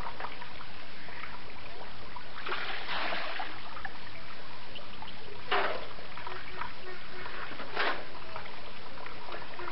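Water trickling from a tap into a metal bucket, with three splashes as water is scooped and poured during bathing, the first one longer.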